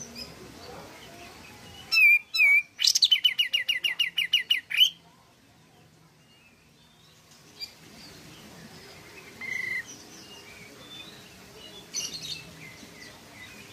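Olive-winged bulbul (kapas tembak) singing: two short calls about two seconds in, then a fast run of evenly spaced notes, about eight a second, for some two seconds. A few softer single calls follow later, over faint chirping of other birds.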